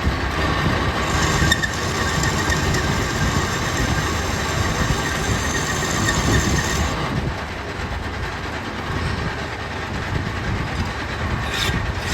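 Metal lathe running steadily. A high-pitched whine rides over it for several seconds and stops about seven seconds in.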